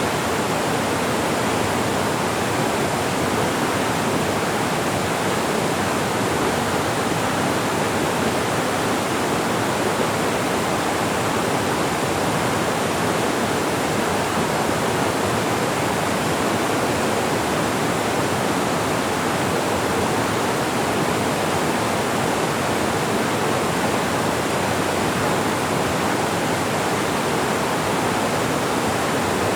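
Mountain valley stream rushing over rocks, a steady, even sound of flowing water.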